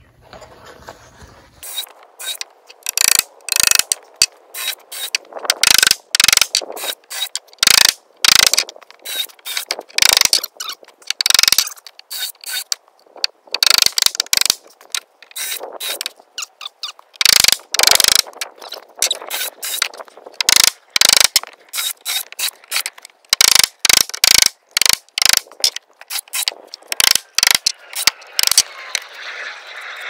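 Cordless power driver sinking screws into the timber beams of the base, running in many short ratcheting bursts that stop and start throughout.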